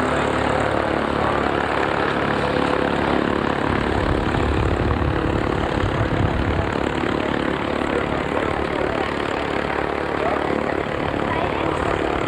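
Propeller airplane engine running steadily nearby, with a low swell in its rumble a few seconds in.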